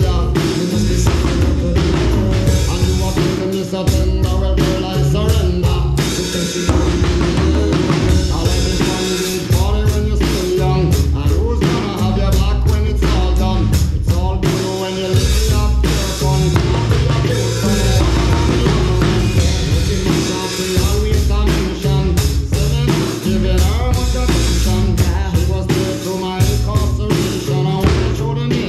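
A rock song with singing, with a drum kit being played along to it.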